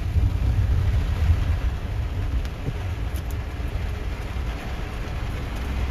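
Car driving on a wet road in rain, heard from inside the cabin: a steady low rumble of engine and tyres under a hiss of rain and spray, with a few faint ticks near the middle.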